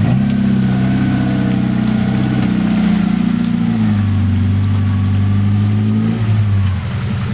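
Suzuki Samurai's 1.6 16-valve four-cylinder engine, through a tuner exhaust, held at high revs under load as it tries a climb. The revs shift about halfway through, then drop near the end as the driver eases off.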